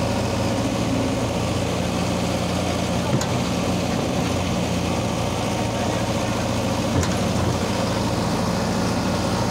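Diesel engines of JCB backhoe loaders running steadily while their buckets push on an overturned tipper truck, with two short sharp knocks, one about three seconds in and one about seven seconds in.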